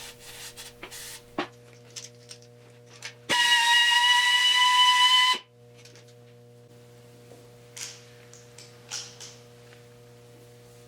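Power drill spinning a cylinder hone in a Triumph Spitfire engine bore for about two seconds: a loud, steady, high whine that starts and stops abruptly. It honed off the carbon ridge at the top of the cylinder. Small clicks and knocks come before and after, over a steady electrical hum.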